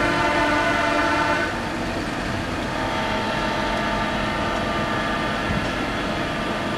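Horns sounding long held notes in several pitches at once, over road noise from a moving car. One blast cuts off about a second and a half in; another starts about three seconds in and holds on.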